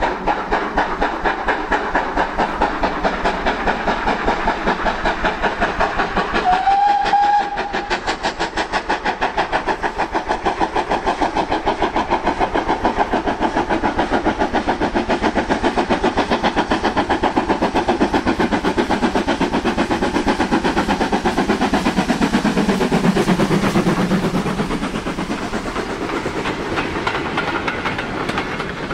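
A GWR steam tank locomotive hauling a goods train, its exhaust beating in a steady rhythm. A short whistle sounds about seven seconds in. The beats grow loudest as it passes, then the wagons and brake van rattle by near the end.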